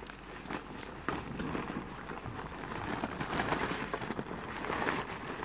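Puppies scrabbling about in a nylon fabric play tunnel: rustling and crinkling fabric with scattered small clicks, growing louder after about a second.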